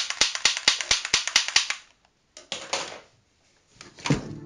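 Plastic toy revolver clicking fast, about four clicks a second, as it is fired over and over; the clicking stops about two seconds in. Plastic toy guns are then handled in a cardboard box, with a thump near the end.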